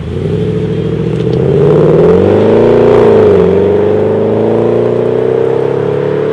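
Jaguar XK 4.2 V8 with Supersprint rear mufflers and oval tailpipes accelerating hard away. The engine note rises, drops on a gear change about three seconds in, then climbs steadily again.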